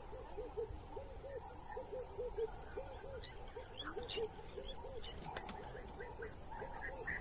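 Bird calls: a run of short, low hooting notes repeated about three times a second, with fainter, higher chirps over them.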